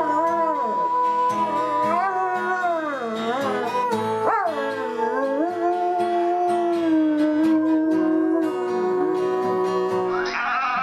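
A dog howling along with music: long drawn-out howls that glide up and down in pitch over a held instrumental note.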